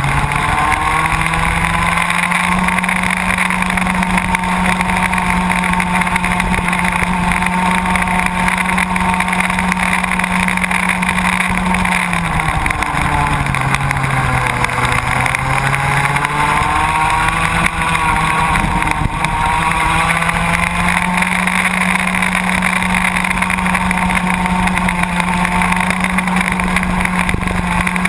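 Small two-stroke Baby ROK kart engine buzzing at high revs under the on-board camera. Its pitch drops about twelve seconds in as the kart slows for a corner, then climbs back about four seconds later. Other karts' engines buzz close by.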